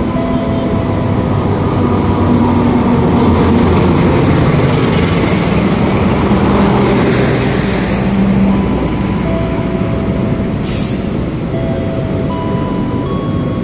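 Argo Sindoro intercity train passing through the station: the diesel-electric locomotive comes by, then the steady rumble of the passenger carriages' wheels on the rails, loudest in the middle of the pass. A short hiss about three-quarters of the way through.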